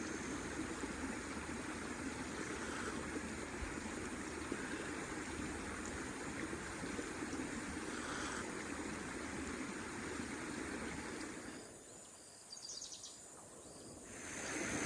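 Steady outdoor forest ambience: an even rushing hiss with a faint, high, steady insect tone above it. Near the end it drops away for about two seconds, then rises again.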